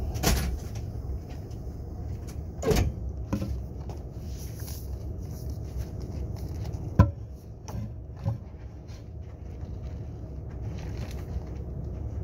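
Steady low hum and rumble inside a KTX train carriage, broken by a few sharp knocks and thuds, the loudest about seven seconds in.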